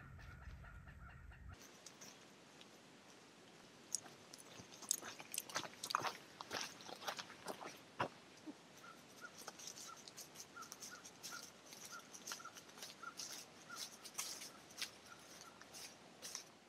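Footsteps crunching on dry leaves along a dirt trail, an irregular patter of small crackles. In the second half a faint short high peep repeats about twice a second. A low hum at the start cuts off about a second and a half in.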